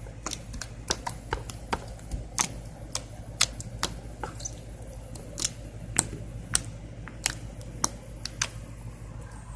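Sticky homemade slime clicking and popping as it is squeezed and pulled off fingers: sharp, irregular clicks, about two or three a second.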